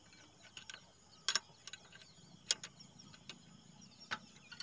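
Scattered sharp metallic clicks of a steel spanner fitting onto and turning the 13 mm belt-adjustment bolt by a power tiller's idler pulley, the loudest about one and a half and two and a half seconds in.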